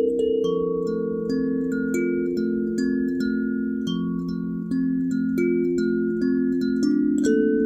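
Background music of bell-like chime notes over slow held tones that step from one pitch to the next.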